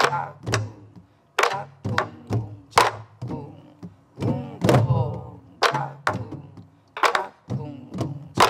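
A group of sori-buk (Korean pansori barrel drums) played in unison in a steady jungmori rhythm, about two strokes a second: deep strokes on the drumheads mixed with sharp clacks of the sticks on the wooden rims. The pattern is the twelve-beat jungmori cycle with the second, fifth and eleventh beats left out.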